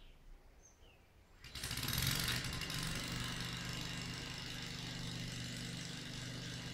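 A lawn mower engine starts about a second and a half in, then settles into steady running. A few faint bird chirps come before it.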